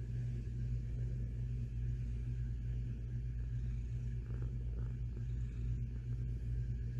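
Domestic cat purring close to the microphone: a steady, low, fluttering rumble.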